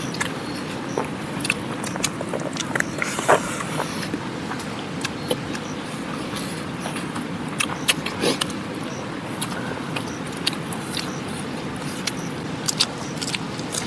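Steady rushing of a mountain river, with scattered sharp clicks and small knocks over it, a few louder ones about three seconds in and around eight seconds.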